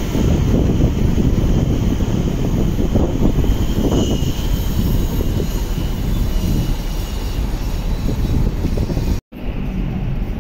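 Diesel engine of a large intercity coach bus running as it moves off at close range, a loud steady low rumble. About nine seconds in it cuts off abruptly in an edit, and a similar vehicle din carries on after it.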